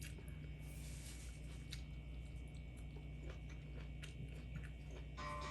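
A person chewing food faintly, with small scattered clicks and crunches, over a steady low hum.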